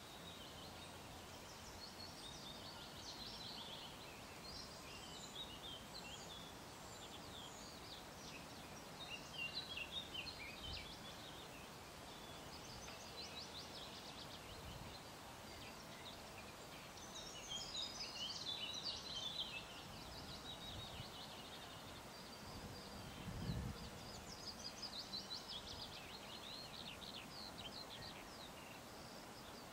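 Several songbirds singing, overlapping phrases of quick, high notes and trills, some louder than others. A brief low thump about three quarters of the way through.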